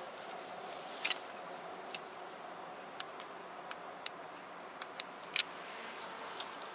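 Steady hiss of a running electric fan, with about nine light, sharp clicks at irregular intervals over it.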